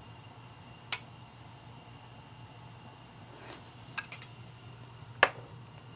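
Kitchen dishes and utensils being handled: a light clink about a second in, a couple of small clicks around four seconds, and a sharper clink about five seconds in, over a steady low hum.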